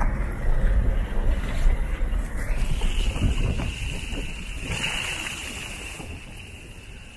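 Wind buffeting a small camera's microphone: an uneven low rumble that eases off toward the end. A steady high whine comes in about two and a half seconds in.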